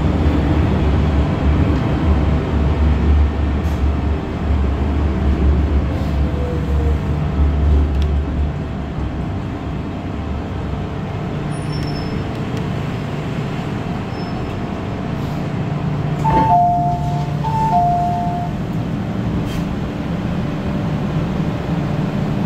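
Cabin sound of an MTR M-Train electric metro train running, with a steady low hum and rumble that eases off about a third of the way in. Near the end a click is followed by a falling two-note electronic chime sounding twice.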